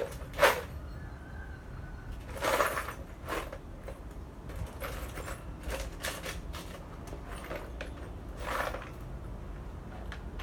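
Scattered knocks and clinks of hand tools being handled, the loudest a sharp knock about half a second in and another clatter about two and a half seconds in.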